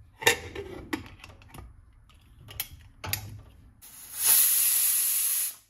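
Several sharp clicks and knocks of a cooking pot and its lid, then a loud steady hiss for about a second and a half that cuts off suddenly.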